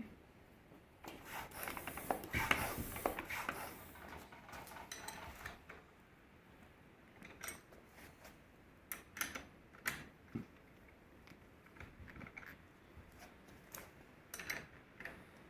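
Faint handling noises: a patch of rubbing and rustling in the first few seconds, then scattered, irregular clicks and taps, from work on the bicycle wheel and tire pump.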